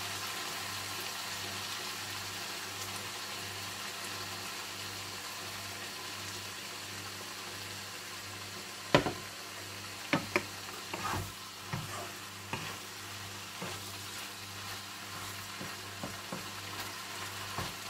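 Sliced chicken sizzling steadily in a frying pan, with a low pulsing hum underneath. From about halfway in, a spatula stirring and knocking against the pan in irregular clicks and scrapes.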